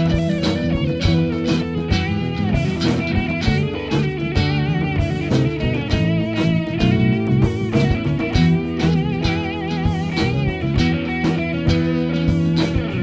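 A small band playing an instrumental passage: electric guitar out front over bass, drum kit and hand drum, with wavering held notes running through it.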